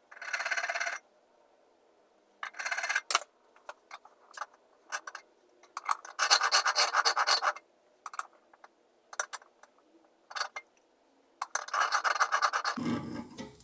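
Steel point of a spring divider scribing a line into a metal bracket held in a vise, marking out an arc around its pin: four main scratching strokes of about a second each, with short scrapes and clicks between.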